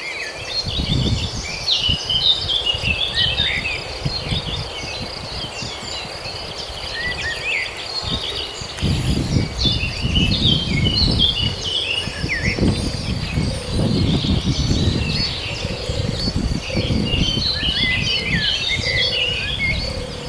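Many small birds chirping and twittering over a steady high insect drone in open farmland. An uneven low rumble runs underneath and grows heavier from about nine seconds in.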